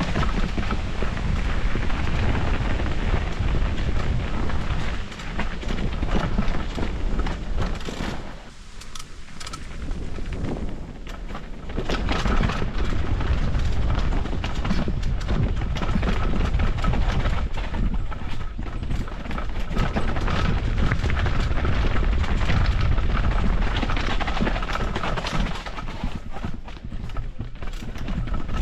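Enduro motorcycle engine running over a rough, rocky trail, under heavy wind rumble on the microphone and a steady run of knocks and jolts from the bike over the rocks. It eases off for a few seconds about eight seconds in.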